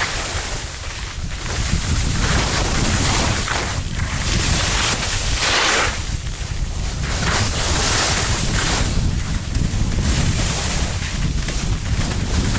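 Skis hissing and scraping over packed snow during a run, with wind rumbling on the microphone; the ski hiss swells and fades several times.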